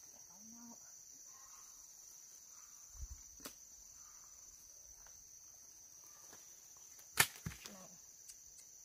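Steady high-pitched insect chirring throughout. A dull knock about three seconds in, and a single sharp crack about seven seconds in followed by lighter knocks, as a woven basket and gear are handled.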